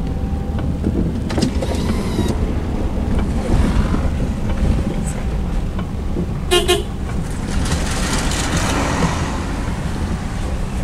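Cabin road and engine noise of a car driving in heavy rain. An oncoming bus gives one short horn blast about six and a half seconds in, then rushes past.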